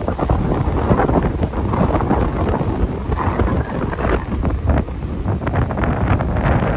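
Wind buffeting the microphone of a phone on a moving bicycle: a loud, gusty rumble that rises and falls throughout.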